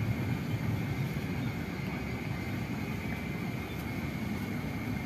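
Steady low outdoor rumble, with a faint steady high whine above it.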